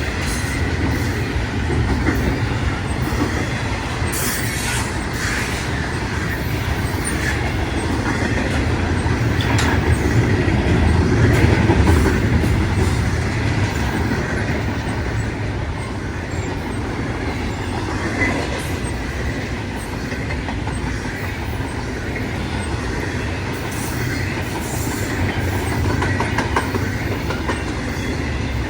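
A train rolling past on the rails: a steady rumble with wheels clattering over the track, swelling a little partway through.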